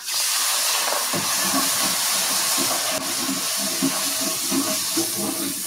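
Cold milk hitting a hot roux in a cast iron skillet: a loud, steady sizzling hiss that starts suddenly and eases off a little near the end. From about a second in, a wooden spatula stirs the gravy and the pan.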